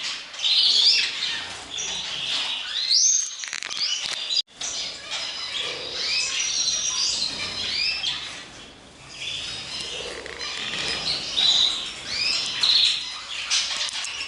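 Many birds chirping and calling at once, a dense overlapping chorus of short high chirps and whistles, broken by a momentary gap about four and a half seconds in.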